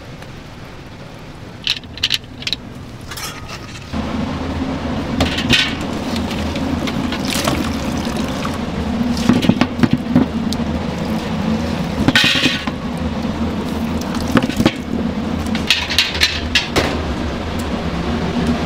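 Kitchen work at a large stainless-steel stockpot of pork-bone broth: metal clinks and scrapes of a mesh strainer against the pot and liquid sloshing and pouring. Under it, a steady low hum starts about four seconds in.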